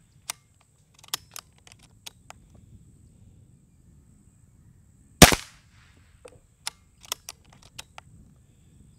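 A .22 Brocock Grand Prix S6 PCP air pistol fires once, a sharp shot about five seconds in with a short tail. Light clicks come before and after it as the action is cycled and a new pellet is chambered.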